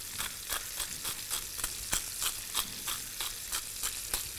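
A hand pepper mill grinding pepper onto poultry breasts in a hot cast-iron grill pan, over a steady sizzle with irregular sharp crackles a few times a second.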